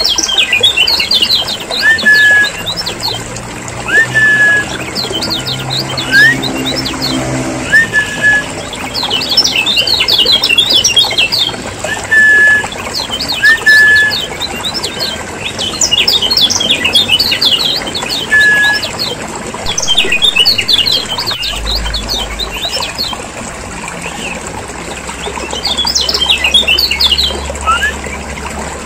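Kecial kuning (yellow white-eye) birds chattering busily: bursts of rapid, high, scratchy notes every few seconds, mixed with a short clear whistled note repeated every second or two. A faint low rumble sits under the last few seconds.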